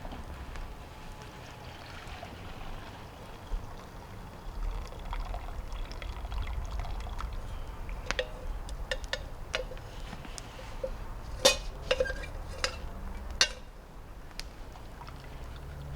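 Liquid being poured, followed by a run of sharp clinks and knocks, the loudest a little past halfway and again near the end.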